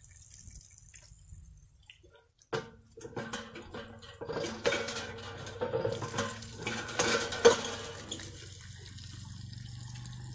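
Hand pump being worked, its metal handle and mechanism clanking in a run of knocks while water gushes and splashes from the spout onto the stone platform; the clanks stop near the end and the water runs on more steadily.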